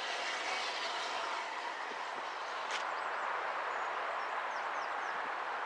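LMS Black 5 4-6-0 steam locomotive No. 45407 on the move at a distance, heard as a steady rushing noise with no distinct exhaust beats.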